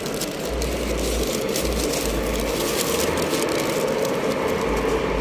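Paper sandwich wrapper crinkling as a Subway sub is unwrapped and handled, over a steady background hum.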